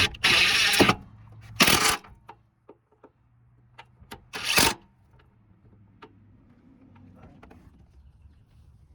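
Hand work on a car's fender bracket and bolts: three short scraping or rustling bursts in the first five seconds, scattered light clicks and knocks, then only a faint low hum.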